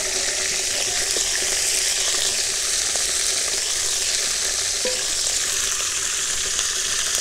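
Raw cauliflower florets frying in hot soybean oil in an aluminium karai, just added: a dense, steady sizzle with small crackles here and there.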